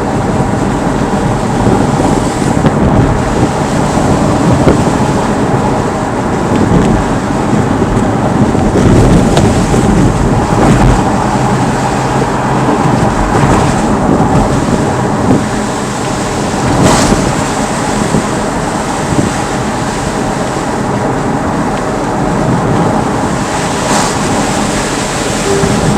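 Car interior noise picked up by a dashboard camera while driving: a steady engine and road rumble, with a few sharp knocks from the car partway through and near the end.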